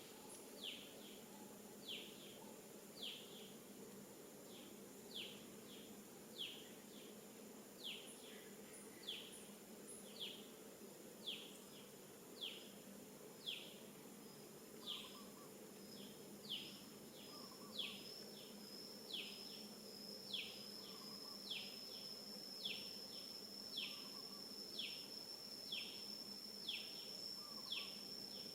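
Faint outdoor chirping: a short, falling high chirp repeats about one and a half times a second, over a steady high whine that grows stronger about halfway through.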